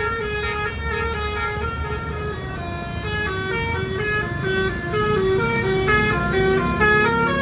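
Instrumental music without vocals: a lead line plays a melody of short notes stepping up and down over a low bass.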